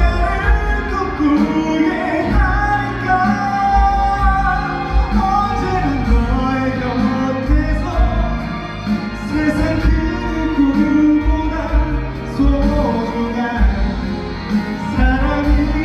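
Music with singing, a woman's voice over a repeated bass beat.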